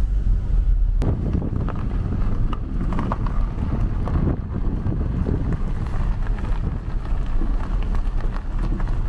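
Wind rumbling on the microphone over the low, steady noise of a car driving slowly.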